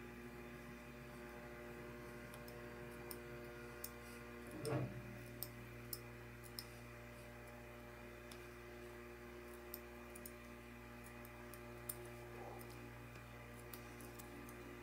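Soft background music holding one sustained chord, with faint scattered small clicks and a single soft bump about five seconds in.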